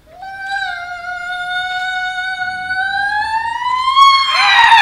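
A single high Kunqu opera voice holds one long drawn-out note. The pitch slides upward near the end, then breaks into a falling wail.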